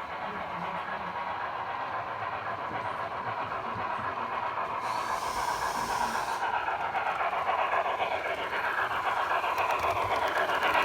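HO scale model train running along the track, a steady rail noise that slowly grows louder as it comes nearer, with a brief hiss about five seconds in.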